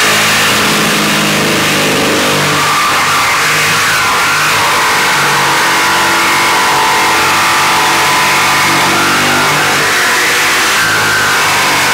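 Corded jigsaw cutting a shape out of a plywood sheet, its motor and blade running steadily without a break.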